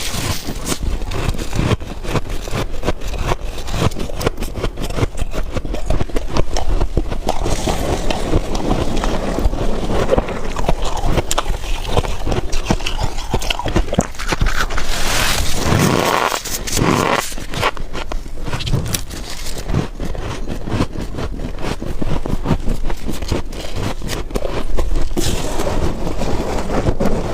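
Soft, powdery freezer frost being scraped and crunched while it is eaten: a dense, continuous run of crisp crackling and scraping.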